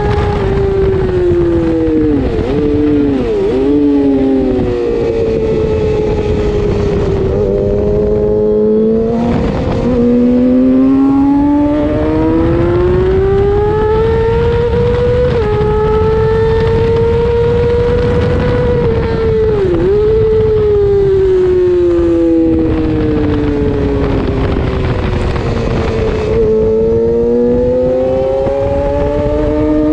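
A 600cc racing motorcycle's engine heard from onboard at speed. Its pitch climbs under acceleration and falls with braking and gear changes, with a few quick dips and wobbles, over a constant rush of wind.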